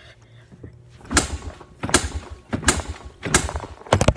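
Handling noise from a phone being fumbled and dropped: four heavy scraping, knocking bursts about two-thirds of a second apart as the microphone is rubbed and struck, then a quick run of sharp clicks and knocks near the end.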